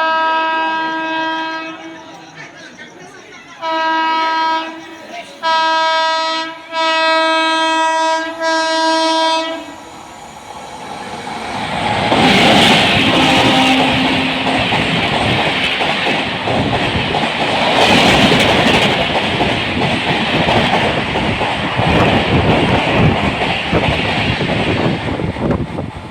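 An Indian Railways locomotive horn sounds a long blast, then four more blasts in quick succession. About ten seconds in, the train arrives and passes at speed, its wheels clattering steadily over the rail joints.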